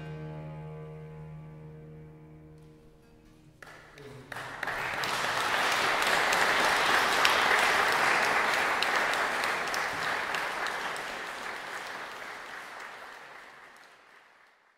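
The final chord of harpsichord and baroque cello dies away. Then an audience breaks into applause: it starts with a few claps about four seconds in, swells quickly and fades out slowly.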